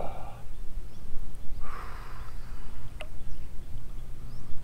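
Brief soft splash of lake water about two seconds in as a fish is let go from the hands back into the water, over a steady low rumble, with one click about three seconds in and a few faint bird chirps.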